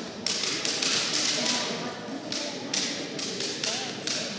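Hands slapping: several sharp smacks a second over a hiss of crowd noise in a sports hall.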